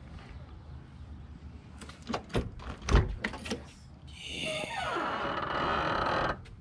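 Door of a 1958 Chevrolet Impala being opened: a string of latch and handle clicks and a heavy clunk about three seconds in. This is followed by a steady rushing noise for about two seconds that stops suddenly.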